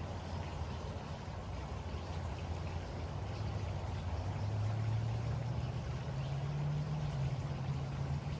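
Waterfall rushing steadily, with a low engine-like hum underneath that rises slightly in pitch about halfway through.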